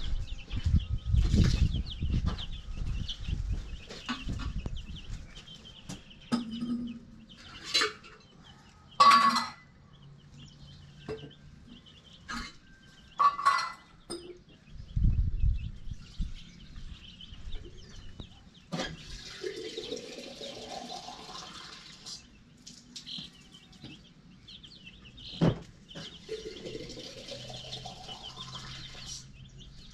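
A brooder full of day-old chicks peeping steadily. A few sharp knocks and low rumbles come through, and twice, near the middle and near the end, there is a longer call that rises in pitch.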